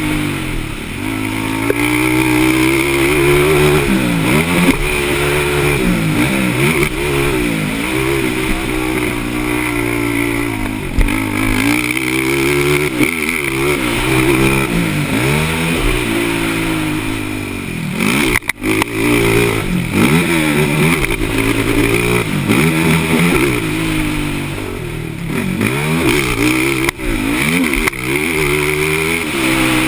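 Racing ATV engines revving up and down over and over as the quads accelerate and back off around a motocross track, with more than one machine heard at once.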